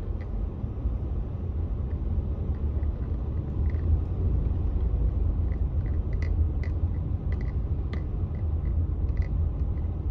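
Steady low rumble of a car driving slowly, heard from inside the cabin. Scattered faint clicks through the middle.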